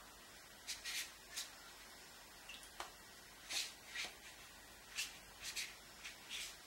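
Paintbrush working on watercolour paper: about a dozen short brushing swishes in irregular succession.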